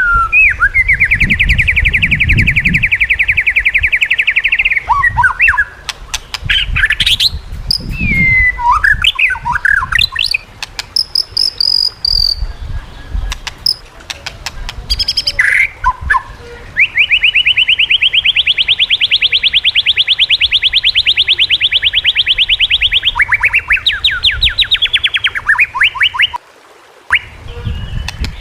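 White-rumped shama (murai batu) singing. It gives two long, rapid trills held near one pitch, with varied clear whistles and swooping notes between them, and a run of quick notes stepping downward near the end.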